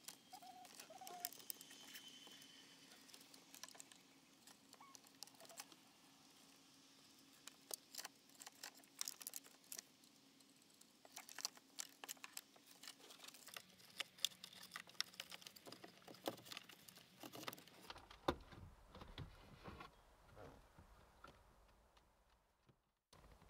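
Faint scattered clicks, taps and rustles of plastic wiring connectors and cables being handled and plugged into the back of an Alpine iLX-700 car stereo head unit, with a faint steady hum through the first half.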